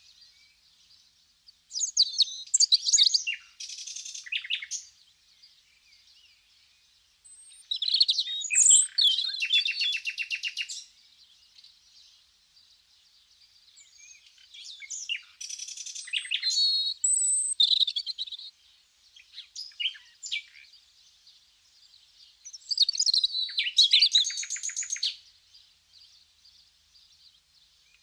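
A small songbird singing in separate phrases of quick chirps and fast, even trills, with pauses of a few seconds between phrases.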